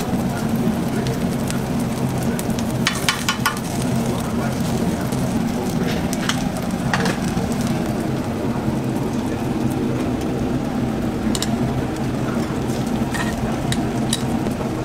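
Pancakes frying in oil on a flat steel griddle, a steady sizzle over a low hum. A metal spatula clicks on the griddle in a quick run about three seconds in, with a few single clicks later.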